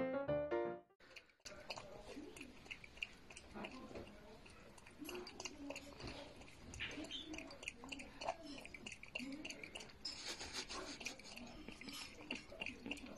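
Piano music cuts off about a second in. Then a raccoon chews and bites at the rim of a glass mug of water, making faint, quick clicks and wet mouth noises.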